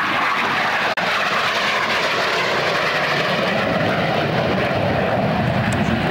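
An AV-8B Harrier's Pegasus turbofan at high power as the jet makes a fast pass and pulls up into a climb. It makes a loud, steady jet rush whose pitch falls as the aircraft goes by, with a deeper rumble building toward the end. There is a brief dropout about a second in.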